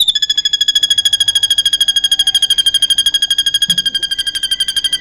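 Drongo (srigunting) singing its cililin imitation: a long, rapid, pulsed high whistle trill of about a dozen notes a second on one pitch that sinks slightly.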